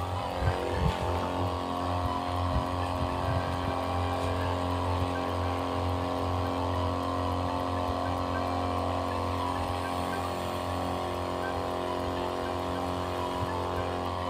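Motorized sprayer pump running steadily while its wand sprays liquid over a compost heap.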